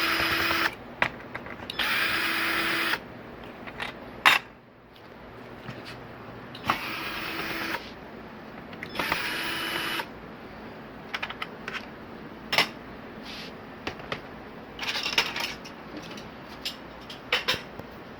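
Power screwdriver backing out screws from the TV's back panel: four short runs of about a second each, with clicks and light knocks of parts and screws being handled in between.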